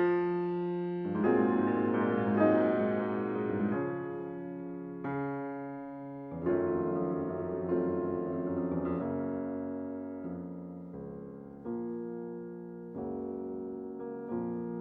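Background piano music: slow chords struck about every second and a half, each fading before the next.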